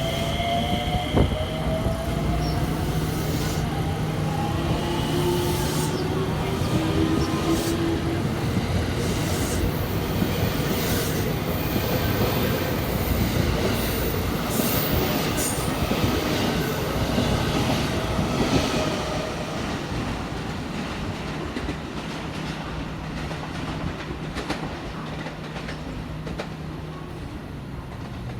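A JR West 225 series and 223 series 2000 electric multiple-unit train pulling out of a station. Its traction motors whine, rising in pitch as it accelerates, over rumbling and clacking wheels, with high wheel squeals partway through. The sound fades as the train moves away in the last third.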